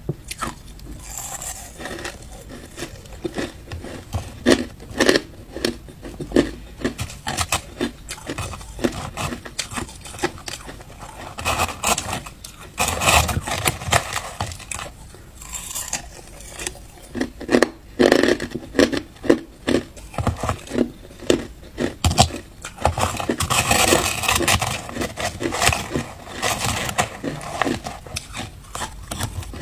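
Crushed ice crunching and cracking as it is chewed, close-miked, in rapid irregular clusters. A metal spoon scrapes and digs through the crushed ice in a plastic tub.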